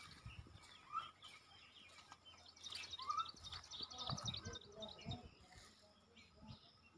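Birds chirping faintly, with a flurry of quick high chirps around the middle.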